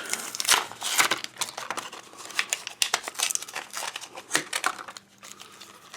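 Plastic blind-bag packaging being crinkled and torn open by hand, a dense run of irregular crackles that thins out near the end.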